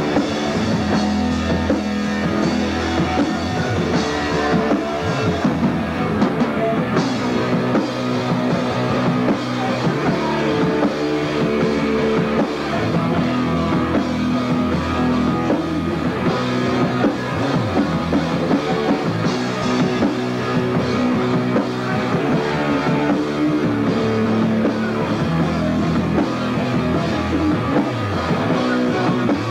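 A punk rock band playing live in a rehearsal room: electric guitar and a drum kit, loud and even.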